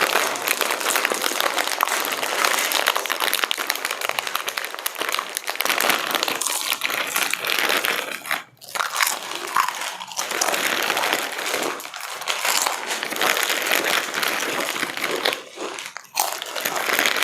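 Plastic potato-chip packets crinkling and chips being crunched, a dense, continuous crackle with two short pauses.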